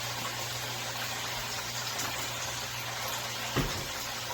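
Bacon-wrapped chicken tenders sizzling steadily in the pan over a low hum, with one short knock about three and a half seconds in.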